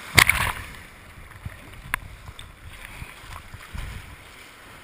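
White water splashing and rushing around a kayak heard from a camera on its deck, with a loud splash of water over the camera just after the start and a sharp knock about two seconds in. Wind and water rumble on the microphone underneath.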